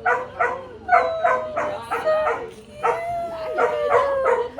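Puppies whining and yipping: quick repeated yips over long whines that slide slowly down in pitch.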